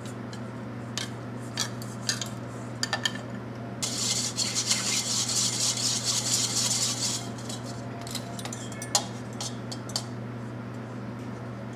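Wire whisk in a stainless steel bowl, beating a thin oil-and-vinegar dressing into an emulsion: a rapid, even rattle for about three seconds near the middle, with scattered clinks and taps of metal on the bowl before and after.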